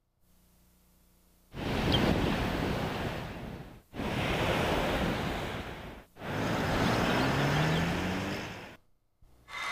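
Ocean surf: three waves breaking one after another, each coming in suddenly and washing away over about two seconds, after a faint low hum at the start.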